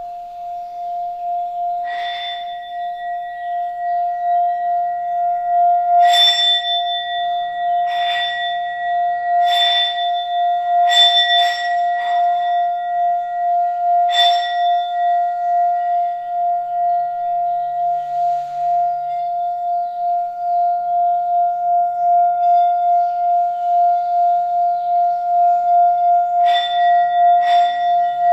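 Tibetan singing bowl ringing with one steady, sustained tone and a few higher overtones, the level wavering slowly. A mallet strikes or taps it about nine times, mostly in the first half and twice near the end.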